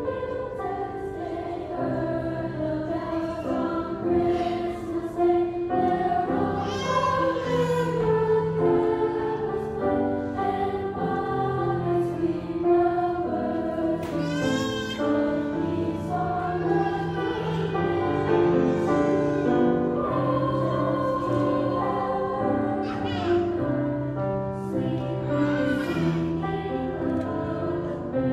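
A girls' choir singing in parts, accompanied on grand piano, with sustained notes that change pitch.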